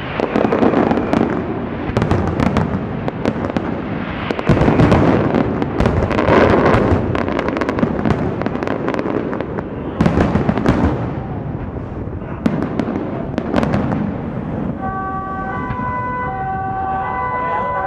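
Aerial firework shells bursting in a rapid series of booms with crackling, several of them loud. Near the end the bursts thin out and steady tones at several pitches come in.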